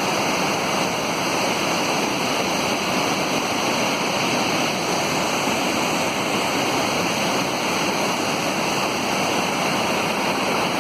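Rogie Falls waterfall rushing: a steady, loud roar of falling and churning water.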